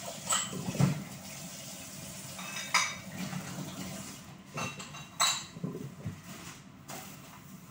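Dishes clinking and knocking against each other and the stainless steel sink as they are washed by hand and set in a drying rack, about eight sharp clinks spread through, over the steady hiss of tap water running.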